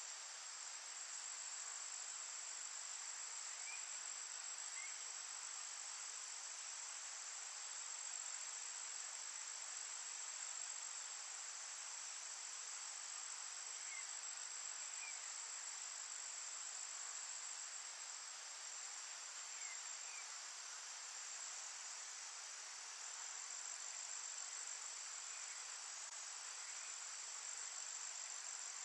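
Steady, high-pitched chorus of crickets droning without a break, with faint short chirps coming in pairs every few seconds.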